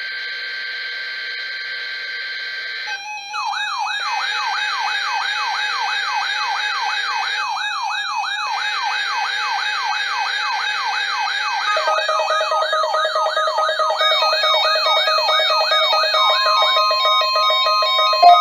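Synthetic electronic alarm tones layered together. A steady high tone is followed, from about three seconds in, by a repeating rising siren whoop, roughly two a second, over warbling and steady beeping tones. Near the end, steady lower tones take over from the whoop.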